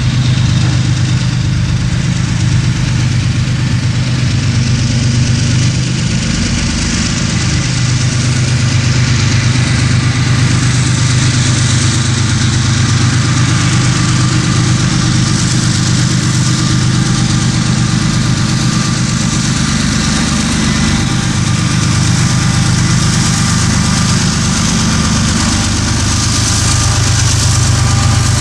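Diesel locomotive engine running steadily at low throttle, a loud, even low hum.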